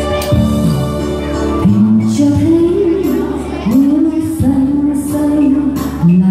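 Woman singing a slow Vietnamese ballad into a microphone over Yamaha electronic keyboard accompaniment. The keyboard plays sustained chords alone at first; the voice comes in after about a second and a half and sings long held notes with vibrato.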